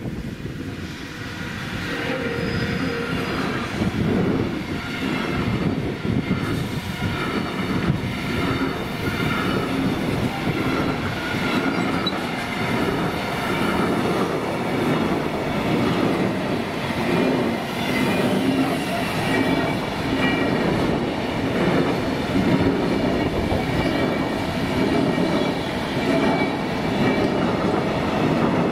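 Freight train of container wagons passing close by, growing louder over the first few seconds. Its wheels then keep up a steady clatter over the rails, with high-pitched wheel squeal running over the top.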